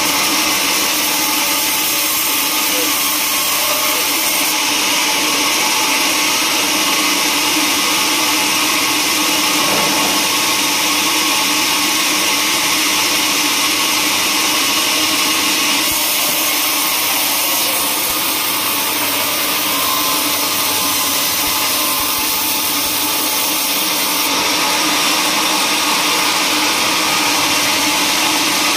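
Band sawmill running steadily with its blade ripping lengthwise through a teak log, a constant loud machine noise.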